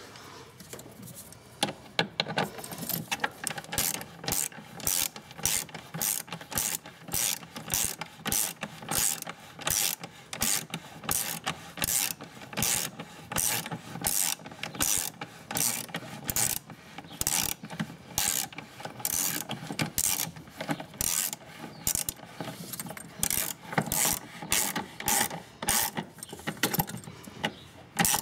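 Ratchet wrench clicking in a long run of short, even strokes, about two a second, as a bolt is tightened while the new battery is fitted.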